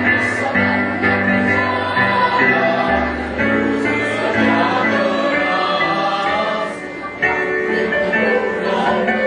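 A choir singing a song in parts, with sustained low accompanying notes underneath.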